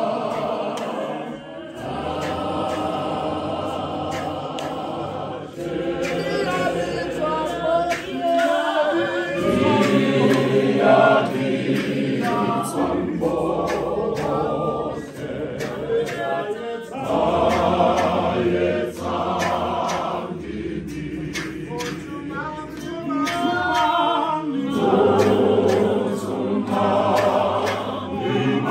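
Church congregation singing together unaccompanied, many voices in harmony in long held phrases with short breaks between them.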